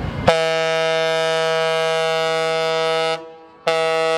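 Passenger ship's horn sounding: one long steady blast of about three seconds at a single pitch, then a second shorter blast near the end.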